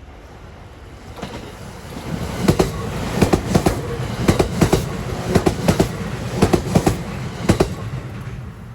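EF65 electric locomotive running light past, its rumble building from about two seconds in, then its wheels clacking over rail joints in quick pairs and groups for about five seconds.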